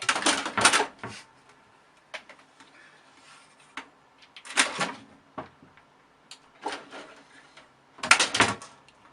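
Irregular knocks and clatters: a cluster of them at the start, another about halfway through and another near the end, with single clicks between.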